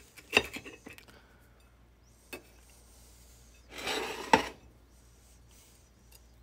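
Kitchen utensils and dishware knocking and scraping: a sharp clink, a lighter tap, then about half a second of scraping that ends in a clatter.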